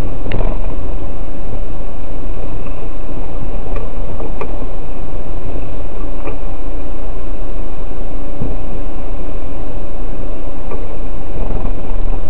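Steady, loud engine and road noise of a car driving on a winding road, heard from inside its cabin, with a constant whine and a few short sharp clicks or rattles.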